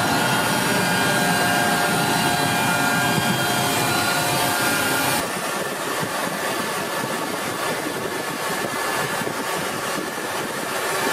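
Jet aircraft engines running, heard from inside the aircraft: a steady noise with several high whining tones. About five seconds in it changes abruptly to a duller, slightly quieter steady engine noise in the cockpit, without the whine.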